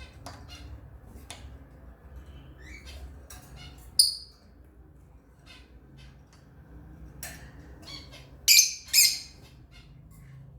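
Lovebirds chirping in quick short calls, with a loud shrill squawk about four seconds in and two more close together near the end.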